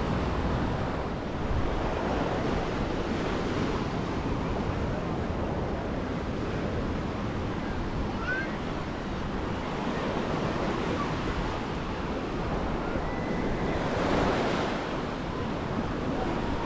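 Small surf waves washing and breaking on a sandy beach at the water's edge, with wind buffeting the microphone; one wave breaks louder about fourteen seconds in.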